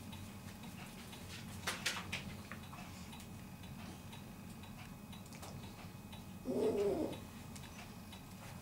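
A dog and a kitten play-fighting on a blanket-covered couch: scattered soft clicks and rustles of paws on fabric, with one short, low animal vocalization about six and a half seconds in.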